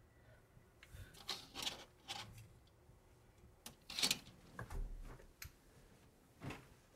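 A handful of short, soft rustles and light knocks, the loudest about four seconds in, from a person shifting and moving about on a mattress.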